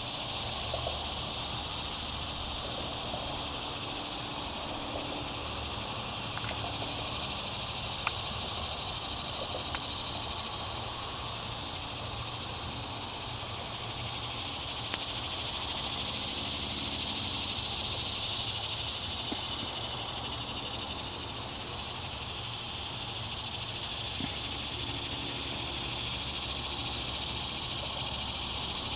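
Dense summer insect chorus: a steady high buzz that swells twice, once mid-way and again near the end, with a faint, fast-pulsing high trill above it and a low rumble underneath.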